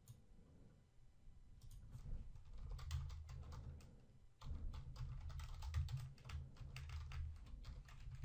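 Computer keyboard typing: a faint run of quick key clicks that starts about two seconds in, breaks off briefly just past the middle, then resumes.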